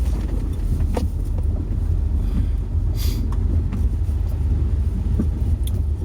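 Steady low rumble of a car being driven, heard from inside the cabin, with a brief hiss about three seconds in.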